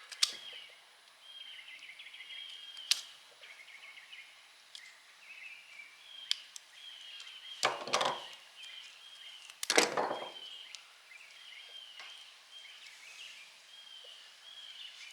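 Small birds chirping steadily in the background, with a few light clicks and two short, louder scraping handling noises about eight and ten seconds in.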